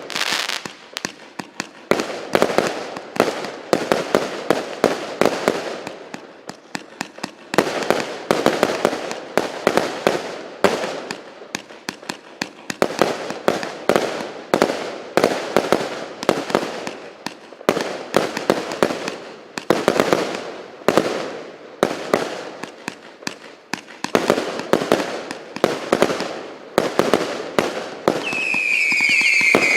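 A 169-shot, 0.8-inch consumer firework battery (cake) firing continuously: rapid volleys of launches and bursts that swell and ease every few seconds, with a falling whistle near the end.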